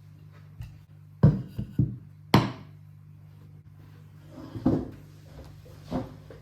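Household objects being handled and set down, giving a quick cluster of sharp knocks about a second in and two more single knocks later on, over a steady low hum.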